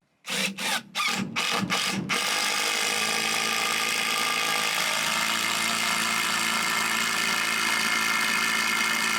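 Cordless drill driving a long screw into a log gusset: about six quick trigger pulses to start the screw, then a steady run of the motor as the screw is driven in.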